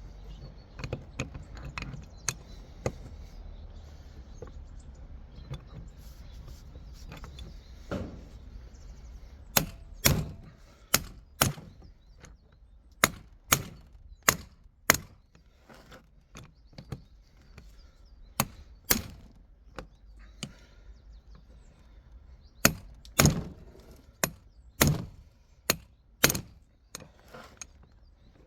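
Sharp hammer blows on a gearbox part, over a dozen strikes in irregular groups, most of them in the second half. The part is being driven by hammering because no press is at hand.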